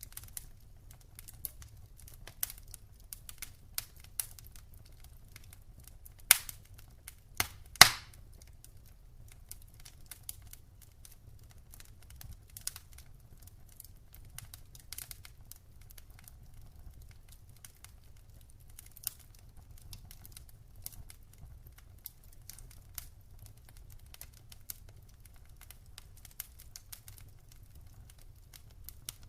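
Wood fire burning in a fireplace, crackling with scattered small pops and two louder pops about six and eight seconds in, over a low steady rumble.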